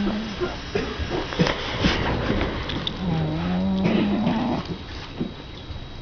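Cat snoring: a drawn-out, slightly rising droning tone lasting about a second and a half, starting about three seconds in, with the tail of an earlier one at the very start, amid soft breathing noise.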